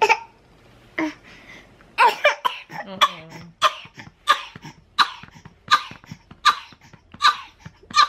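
A baby coughing over and over in a string of short coughs, roughly one every 0.7 seconds, starting about two seconds in. It is a bad cough that the parents say seems to hurt her.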